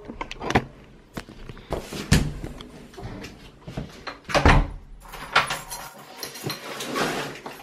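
A door and a large cardboard delivery box being handled: a string of knocks and thumps, the loudest about four and a half seconds in.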